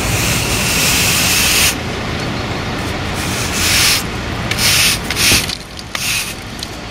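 Push broom sweeping crash debris (shards of glass and plastic) across asphalt: a long scraping stroke at the start, then several shorter ones, over a steady low rumble.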